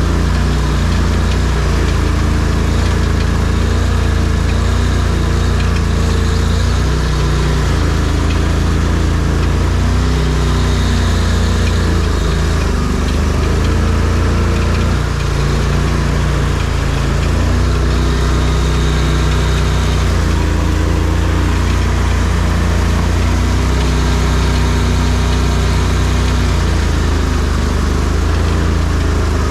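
ARGO amphibious off-road vehicle's engine running steadily as it drives, its pitch rising and falling now and then with the throttle.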